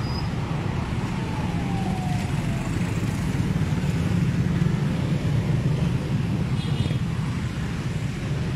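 Steady rumble of road traffic, cars and motorcycles running past, with a faint falling tone about a second in.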